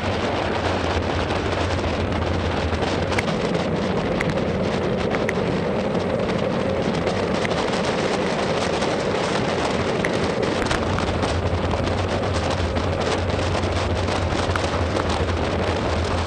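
Wind rushing over the microphone and tyres hissing on a wet road during a fast bicycle descent in heavy rain, a loud steady noise with many small ticks scattered through it as raindrops strike the camera.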